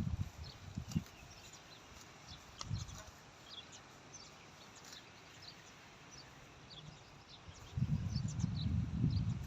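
Small birds chirping faintly and intermittently across a rural background. Near the end, a run of close, low thumps and rustles starts up and grows loud.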